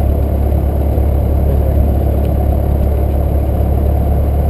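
Piper Warrior II's four-cylinder Lycoming engine and propeller running at low taxi power, a steady low drone heard inside the cabin.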